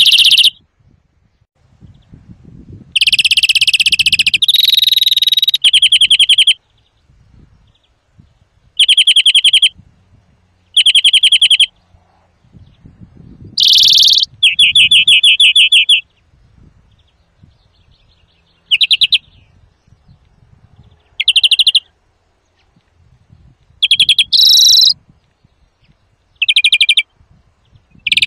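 European greenfinch song, very loud: a series of rapid trills about a second long each, a few drawn out to two or three seconds, repeated after short pauses.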